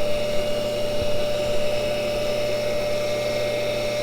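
Cincinnati No. 2 tool and cutter grinder running with a steady whine, its diamond cup wheel grinding a carbide cutter.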